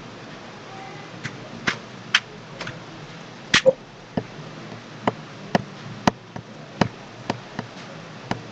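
About fifteen sharp, irregularly spaced clicks over a steady background hiss, the loudest two close together about three and a half seconds in.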